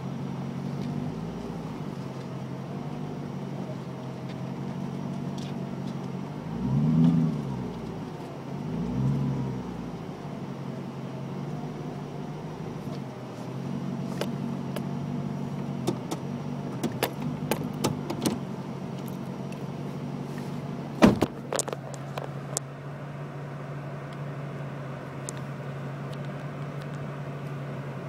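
Supercharged 5.7 L Hemi V8 of a 2006 Dodge Charger idling in Park through an SLP Loudmouth II cat-back exhaust, with two short throttle blips about 7 and 9 seconds in. Past the middle come a run of clicks and one sharp knock, after which the idle goes on steady and duller.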